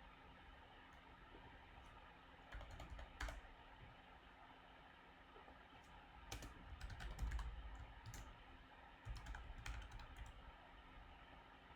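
Faint typing on a computer keyboard: three short bursts of keystrokes with pauses between them.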